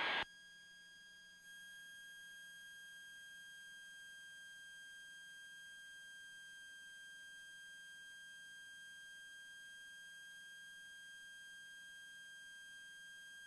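Faint, steady, high electronic tone with no change in pitch, on a cockpit intercom audio feed between transmissions: electrical whine in the audio line rather than the engine itself. It gets slightly louder about a second and a half in.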